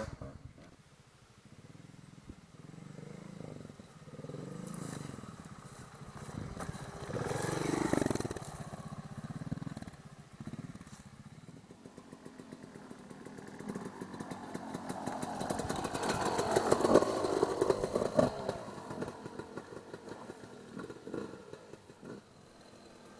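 Off-road dirt bike engines revving as they climb a rocky trail. The sound swells and fades in waves, loudest about eight seconds in and again from about fifteen to eighteen seconds.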